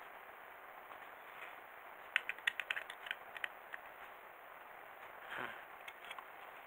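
Small clicks and ticks of a precision screwdriver turning a tiny screw into a white plastic robot-kit part, a quick run of them for about a second and a half starting about two seconds in.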